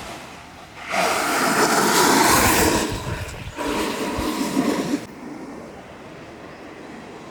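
Freeboard wheels rolling and scraping on pavement in two loud noisy stretches, about a second in and again around three and a half seconds in, over wind noise on the microphone.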